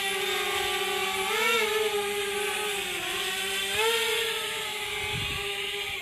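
DJI Spark quadcopter's propellers and brushless motors whining in flight, a steady high buzz that swells up in pitch twice as the throttle changes.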